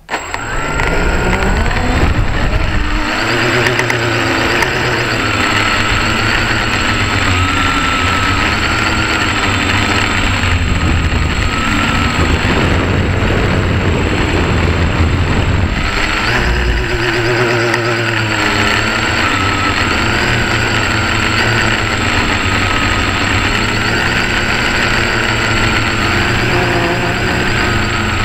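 Quadcopter's four electric motors and propellers spinning up suddenly at takeoff, then buzzing steadily in flight, their whine wavering up and down with throttle changes, heard from a camera mounted on the quadcopter itself. A faint steady high whistle runs underneath.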